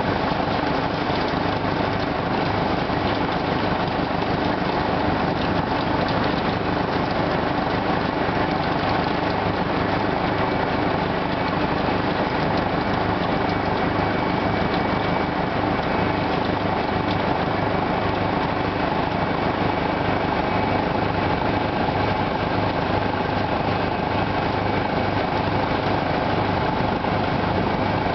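Farm machinery working a beet field: the engine of a Deutz Agrotron 150 tractor pulling a Gillis beet topper, running steadily under load, together with a Dewulf R7150 beet harvester. The drone holds even throughout.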